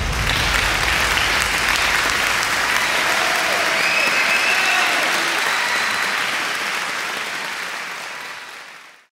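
Concert audience applauding steadily, then fading out near the end.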